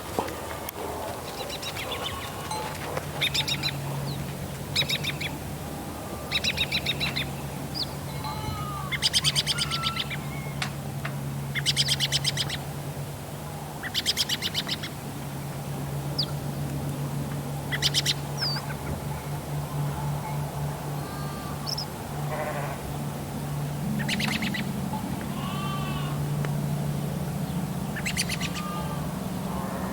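Farm morning ambience: birds making short harsh calls every couple of seconds and sheep bleating now and then, over a low steady hum that sets in a few seconds in.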